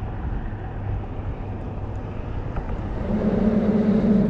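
Steady low engine rumble, joined about three seconds in by a louder, steady engine hum.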